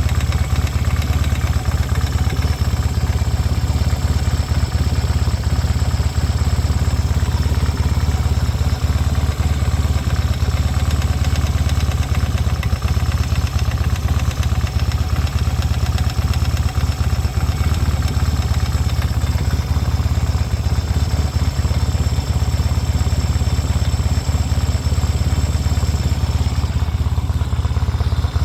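1972 Yamaha XS2 650's air-cooled parallel-twin engine idling steadily with a fast, clattery knocking. The owner hears this knock only when the bike stands upright, not when it leans on its sidestand. It is still there after he tightened the cam chain and set the valves to specification.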